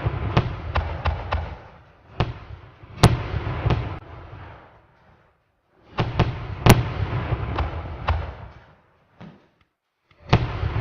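Fireworks display: volleys of sharp bangs in quick succession, each volley trailing off in a low rumble before a short pause. Three volleys, with a fourth beginning near the end.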